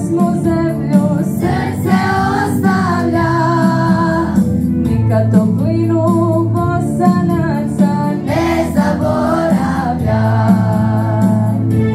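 Children's school choir singing together over instrumental accompaniment, with long held and gliding sung notes above a steady bass line.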